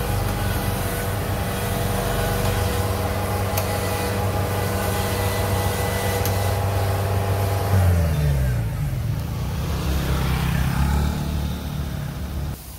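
Kubota DC-70 combine harvester's diesel engine running steadily at high revs as the machine moves. About eight seconds in the revs fall away and the engine runs on at a lower speed.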